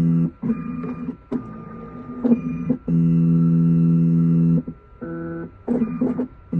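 Computerized key machine decoding a Chevy flip key blade: its stepper motors hum in steady pitched runs of about one and a half seconds, stopping abruptly between moves, with noisier mechanical movement in the gaps.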